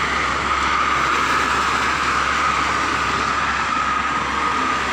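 Steady traffic noise from cars passing at speed on a motorway: a continuous rush of tyres on the wet road surface and engines.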